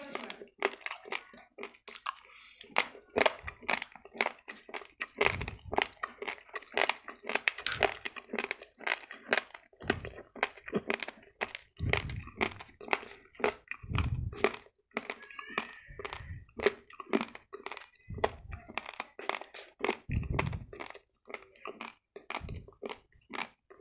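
Raw, uncooked basmati rice being chewed: dense, sharp crunching and crackling as the hard grains break, with dull low thumps every couple of seconds.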